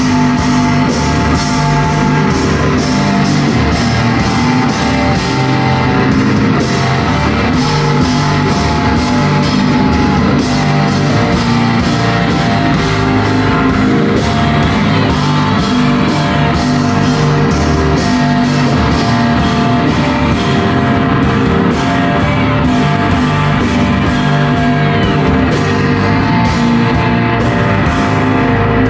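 Live rock band playing loudly: electric guitars and a drum kit, with cymbals struck in a steady beat about two or three times a second.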